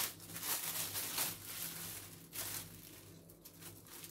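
Rustling and handling noises, several short bursts in the first two and a half seconds, then quieter, over a faint steady low hum.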